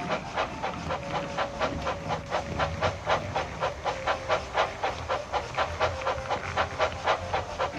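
Model Percy toy steam engine running along its track with a rhythmic steam-engine chuff sound, about four beats a second, over a steady hum.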